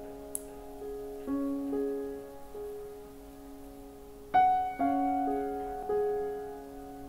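Soft background piano music of slow, held notes, with a louder chord about four and a half seconds in. A faint click sounds just after the start.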